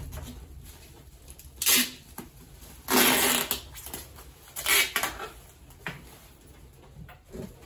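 Packing materials being handled: rustling and crinkling of bubble wrap and card, in three loud bursts, the longest about three seconds in.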